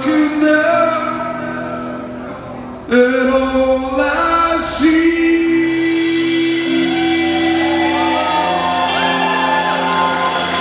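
Male vocalist singing a rock song live with guitar and drum-kit accompaniment, holding a long sustained note in the middle over sustained chords.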